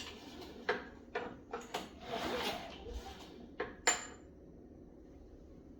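Craftsman snowblower being handled before starting: a run of metallic clicks and knocks, a short rasping scrape about two seconds in, and one sharp metal clink with a brief high ring near four seconds. The engine is not running.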